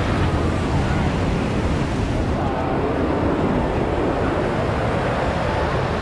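Beach ambience: a steady wash of surf with wind rumbling on the microphone.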